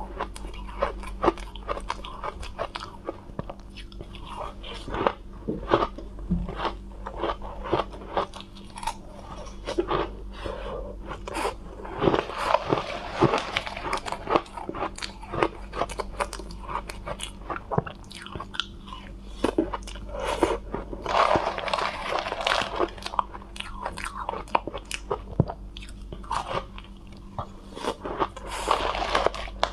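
Close-miked crunching and chewing of soft, crumbly frozen 'cotton ice', many small irregular crunches, with a metal spoon scooping through the ice now and then. Several longer, denser stretches of crunching come about 12, 21 and 28 seconds in.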